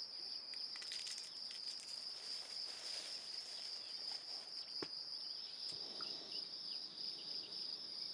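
Insects chirping in a steady high trill, with a single sharp click about five seconds in.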